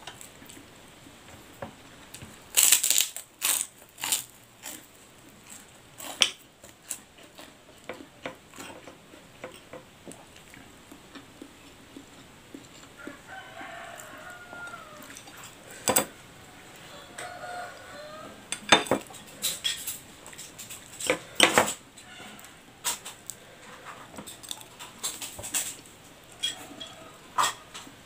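Metal spoon clinking and scraping against ceramic plates during a meal, in sharp, irregular clinks.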